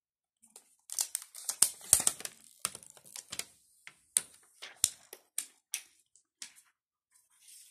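Protective plastic film being peeled off a new phone's screen, crackling and crinkling in a rapid run of sharp snaps from about a second in, thinning out after about five seconds, with a few more crinkles near the end.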